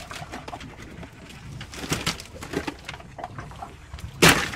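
Mahi mahi and ice being handled in an ice-filled boat cooler, with scattered knocks and rustles. A loud thump about four seconds in as a fish goes into the cooler.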